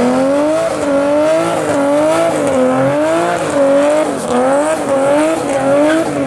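Nissan Skyline R33 doing a smoky burnout slide: engine held at high revs and rear tyres squealing. The pitch rises and falls in waves a little more than once a second as the throttle is worked.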